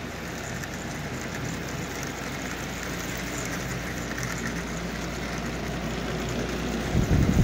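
Lionel General toy steam locomotive running slowly and steadily around three-rail track, a low hum and rolling noise, its DC motor fed through a full-wave bridge rectifier from AC track power and running smoothly with no chatter or buzz. A brief louder low rumble comes near the end.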